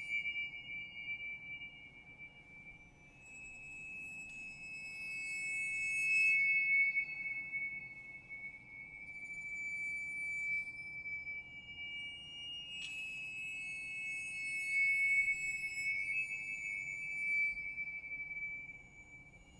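Contemporary string quartet music with Tibetan finger cymbals (tingsha): high, sustained ringing tones that swell and fade, with a fresh sharp strike about 13 seconds in that rings on.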